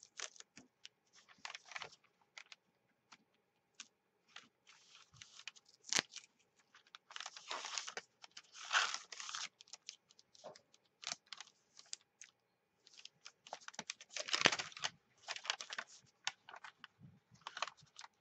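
Masking tape pulled off its roll and crumpled notebook paper rustling and crinkling as the pages are pressed flat and turned, in irregular scratchy bursts. The loudest bursts come about halfway through and again near three quarters of the way in.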